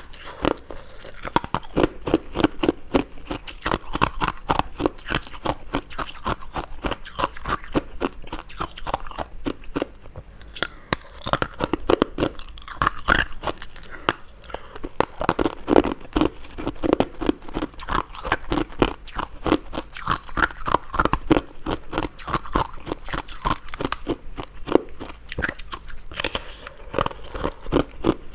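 Close-miked crunching of ice being bitten and chewed: rapid, crisp cracks and crackles, one after another without a break.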